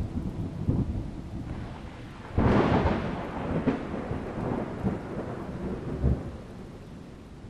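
Thunder: a sudden loud crack about two and a half seconds in, then a rumble that fades over the next few seconds, over a steady hiss of rain.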